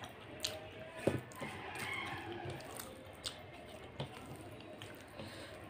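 Fingers squishing and mashing soft, sticky phena bhat (rice congee with ghee) on a steel plate, with a few sharp clicks against the plate.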